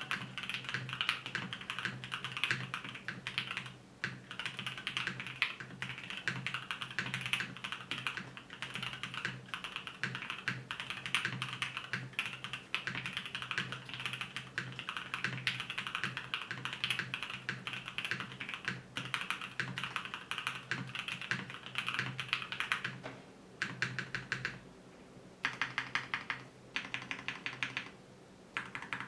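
Fast continuous typing on a 7V 75% mechanical keyboard with a polycarbonate plate, Alpaca linear switches lubed with Tribosys 3204, and PBT keycaps. About 23 seconds in, the typing breaks into short quick runs of keystrokes separated by brief pauses.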